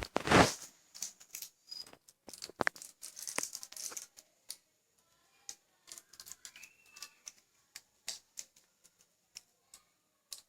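Hands handling Cat 5e cable wires and a continuity tester: scattered small clicks, rattles and rustles, with a louder rustle at the start.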